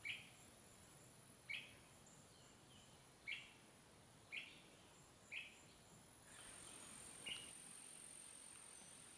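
Faint, short bird chirps: single notes repeated six times, one to two seconds apart, over a thin steady high-pitched tone and a soft hiss that comes in about six seconds in.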